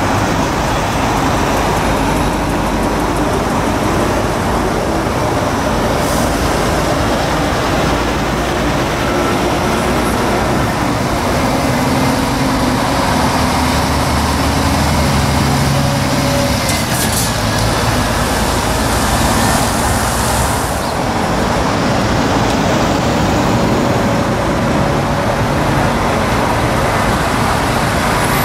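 Scania articulated lorry's diesel engine running at low revs as the truck manoeuvres slowly past, loud and steady, with its engine note showing more clearly in the middle.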